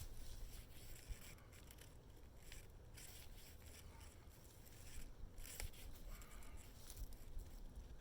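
Rope being hauled tight through a fiddle block pulley set: faint, intermittent rasping strokes.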